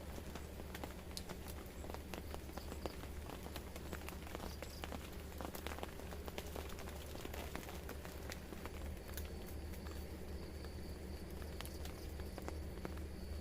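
Rain falling steadily, with many irregular drops pattering and ticking close by. A faint steady high whine joins about nine seconds in.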